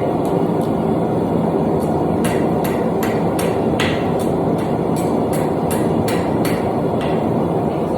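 Hand hammer striking steel on an anvil while forging a center punch: a couple of light taps, then a steady run of about a dozen blows at roughly two and a half a second that stops near the end. A steady loud rushing noise runs underneath.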